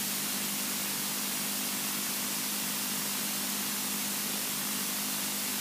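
Steady hiss of a cockpit intercom or radio audio feed, with a low steady hum underneath from the Robin DR400's engine idling.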